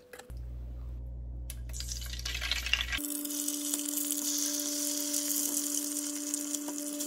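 Tofu frying in hot oil in a pan: a steady sizzling, crackling hiss starts about three seconds in, with a steady hum under it. Before that there is only a low hum.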